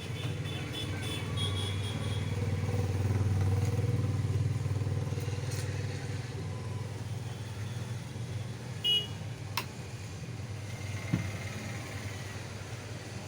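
Low, steady engine-like hum that swells and eases a little about three seconds in, with a few sharp clicks later on.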